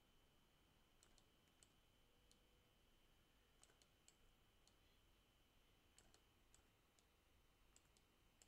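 Near silence: room tone with a faint steady high whine and scattered faint clicks of a computer mouse, some in quick pairs.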